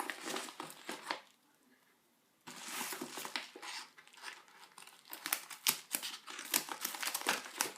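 Shipping packaging being torn open by hand, with crinkling and tearing of plastic or paper wrapping. The crackling pauses briefly near the second second, then picks up again and grows denser with sharp crackles.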